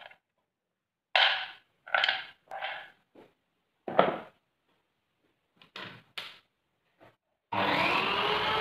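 Scattered short knocks and scrapes of wooden pieces being handled. About a second before the end, a power tool starts up and runs steadily.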